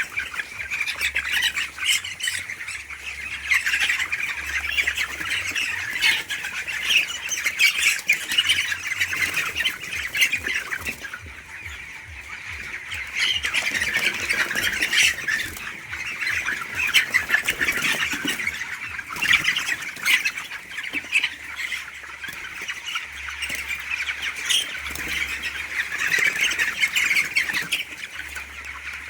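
A flock of young poultry calling all at once: a continuous, dense chorus of high peeping and squawking from many birds.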